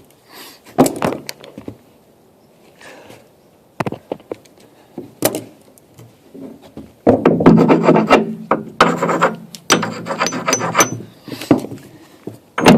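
Hand-tool work on a compact track loader's bucket teeth: scattered metal knocks and clinks, then two harsh scraping stretches of about two seconds each from about seven seconds in, ending on a sharp knock.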